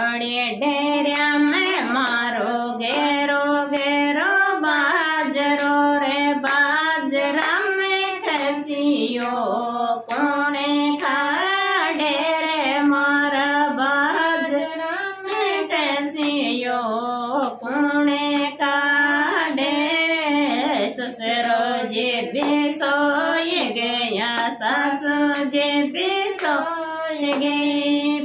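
A woman singing a Rajasthani folk khyal song, the melody sliding and ornamented between held notes.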